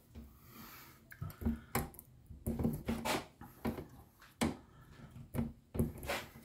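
Irregular metal clicks and knocks, about a dozen, as the end fitting of a bonnet gas strut is worked by hand onto its mounting bracket.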